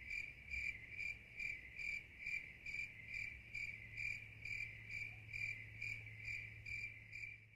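A high-pitched chirp repeating steadily about twice a second, over a faint low hum.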